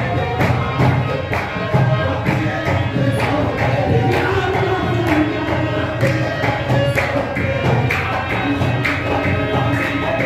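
Devotional music: singing over tabla, the drum keeping a steady beat of about two strokes a second.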